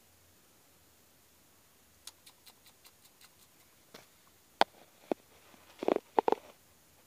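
An opossum rummaging among a plastic bag and food packages: a run of light ticks about five a second, then a few sharp clicks and a short burst of rustling near the end, the loudest part.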